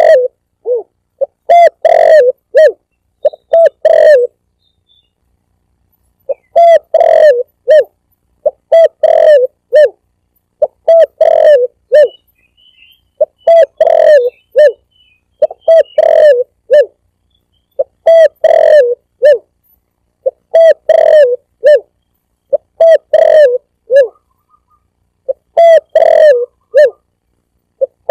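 Spotted dove (tekukur) cooing, played as a recorded lure call: short phrases of a few low hooting notes, repeated about every two to two and a half seconds, with a longer pause about four seconds in.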